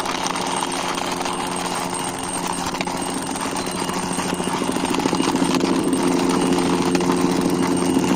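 A steady, fast-rattling mechanical drone with a low hum, growing a little louder about halfway through.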